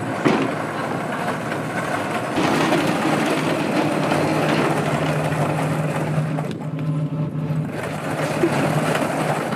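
Steady mechanical noise like a vehicle engine running, with a low hum that holds for a few seconds from about four seconds in.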